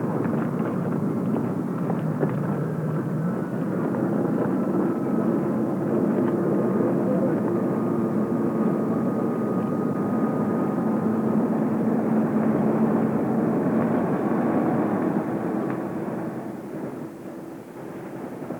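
A steady engine drone that fades out over the last few seconds.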